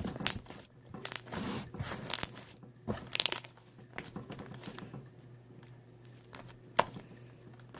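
Slime being handled, giving irregular crackling and popping clicks, busiest in the first three seconds, with one sharp click near the end.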